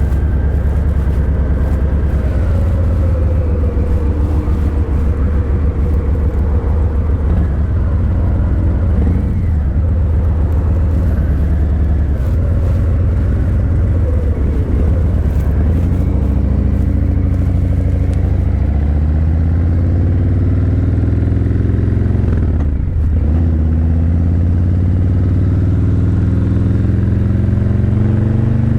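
Harley-Davidson Breakout 117's Milwaukee-Eight 117 V-twin running through Vance & Hines Eliminator 300 slip-on mufflers, a steady deep rumble while cruising. In the second half the engine pitch rises several times in a row as the bike accelerates and shifts up.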